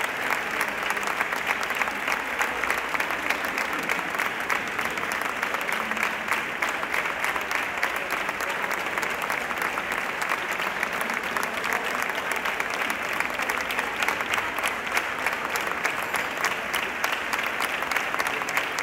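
Audience applauding steadily: dense clapping that holds at an even level throughout.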